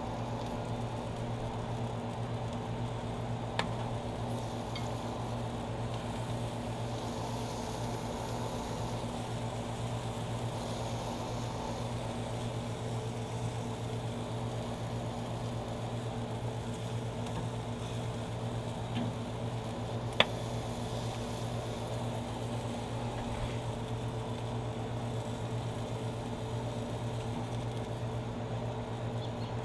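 Steady mechanical hum, like a fan or motor running, with two sharp clicks: one a few seconds in and a louder one about twenty seconds in.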